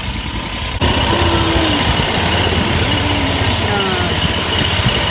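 Predator 670 22 hp V-twin engine on a long-tail mud motor running steadily, getting suddenly louder just under a second in.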